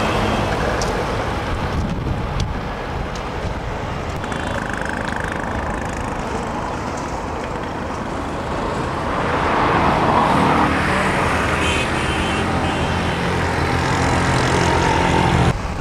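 Road traffic going by: a steady wash of car and truck noise that swells as a vehicle passes about ten seconds in, with engines running through the later part.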